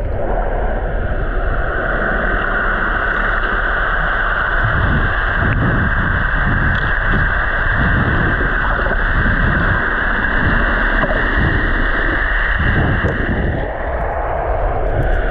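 Muffled underwater sound picked up by a camera below the surface: a steady hiss with irregular low swells through the middle.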